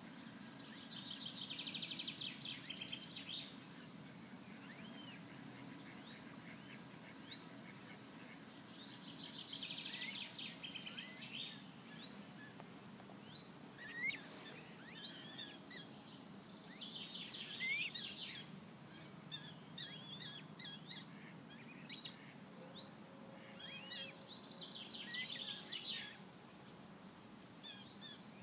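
A bird singing a short, fast trilled phrase four times, about eight seconds apart, with scattered single chirps in between, over a steady low background rumble.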